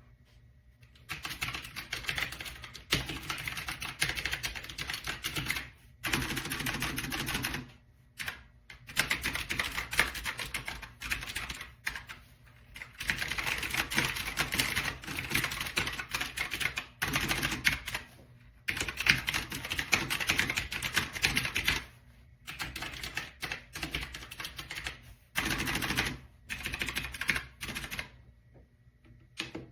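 Rapid clicky typing on an AULA F2088 mechanical keyboard with blue switches. It comes in runs of several seconds with short pauses between them.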